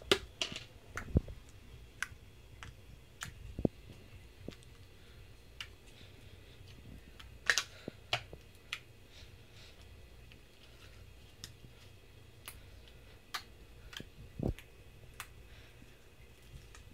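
Homemade slime being pressed, stretched and slapped by hand on a countertop: scattered, irregular sharp clicks and pops, with a few duller knocks. The loudest clicks come about halfway through.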